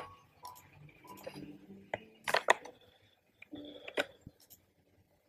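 A few short, sharp clicks of a computer mouse and keyboard as text is pasted into a document, with faint low sounds between them.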